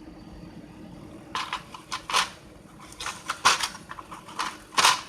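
A mini hand saw's plastic and metal parts being handled: a string of irregular clicks and short rustles, the loudest near the end.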